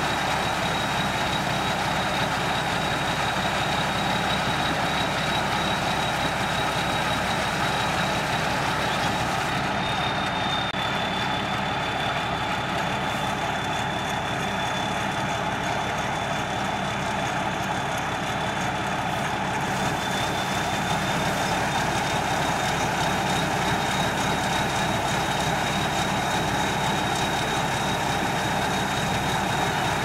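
Rice combine harvester running steadily while it unloads grain through its auger into a sack, an even engine and machinery noise with a constant high whine.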